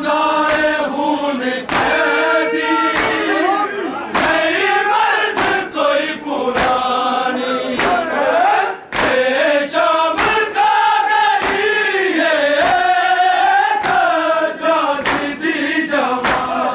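Shia mourners chanting a nauha (lament) in a wavering melody, with sharp, rhythmic slaps of matam chest-beating about once a second.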